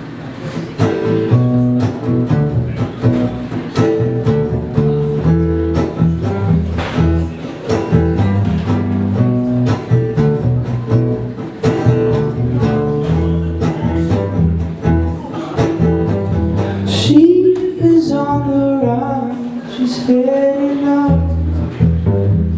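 Live acoustic band playing an instrumental passage: guitar chords with bass notes underneath. From about three-quarters of the way in, a sliding melody line rises above the chords for a few seconds.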